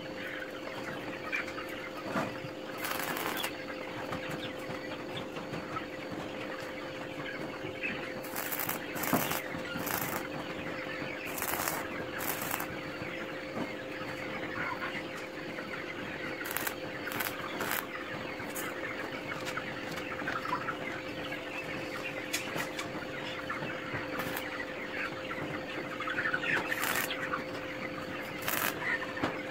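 Chickens clucking over a steady electrical hum, with short sharp crackles at irregular intervals from an electric arc welder joining steel rods.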